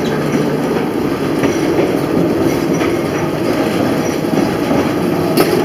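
Vintage electric streetcar running along the track, heard from inside the car: a steady rumble of steel wheels on rail with a few clicks, one of them near the end.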